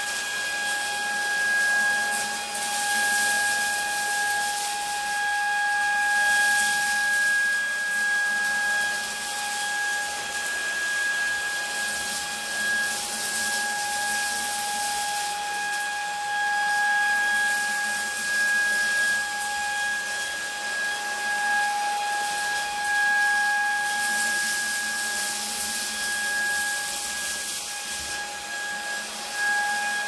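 Lacidoll cordless wet-dry vacuum cleaner running on its second speed while vacuuming dry debris from a thick carpet: a steady motor whine over an even airflow hiss, the level rising and falling a little as it is pushed back and forth.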